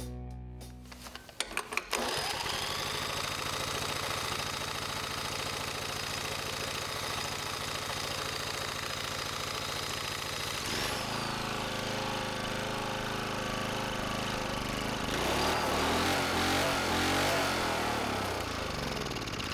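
Small single-cylinder gas engine, fed WD-40 sprayed into its intake, firing with a few sharp knocks and then running at a steady speed. About eleven seconds in the tone shifts, and it runs a little louder and rougher near the end.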